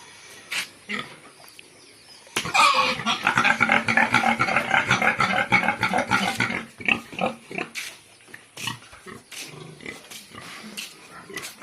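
Domestic pigs squealing loudly together for about four seconds, starting a couple of seconds in, then quieter scattered calls.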